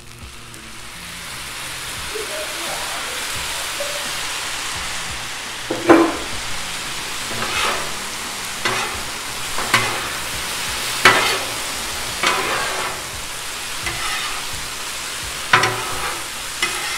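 Shrimp fried rice sizzling on a Blackstone flat-top griddle as sauce is poured on, the sizzle growing louder over the first two seconds. From about six seconds in, two metal spatulas scrape and clack against the steel griddle top every second or so as the rice is tossed, loudest the first time.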